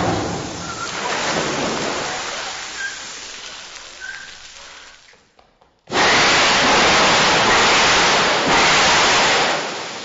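Film sound effects of a great rushing surge like a crashing wave, fading away over about five seconds. After a brief near-silent gap it cuts suddenly to a loud, dense rushing roar of a blast and flying rubble, which eases off near the end.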